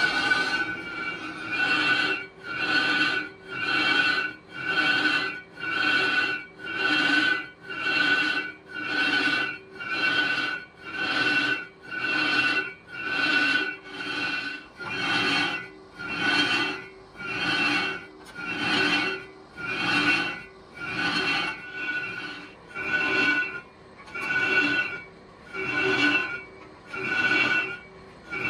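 Cast-iron brake drum turning on a lathe, its metal ringing in a squealing whine that swells and fades in a steady rhythm about once a second.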